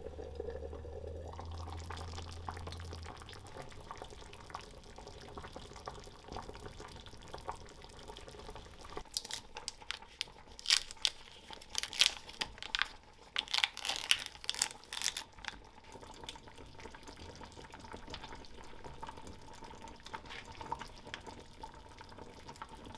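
Soup simmering and bubbling in a small cast-iron pot on a gas hob. A plastic packet is torn open with a run of sharp crinkles and crackles about 9 to 15 seconds in.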